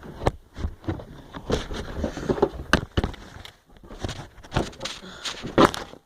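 Irregular knocks, scuffs and rustling from the camera being handled near the microphone.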